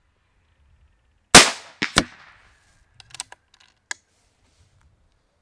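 Ataman M2R .35-calibre PCP air rifle firing one shot: a single sharp, loud report with a short fading tail, followed within about half a second by two more sharp cracks. About a second later come a few light clicks as the action is worked for the next shot.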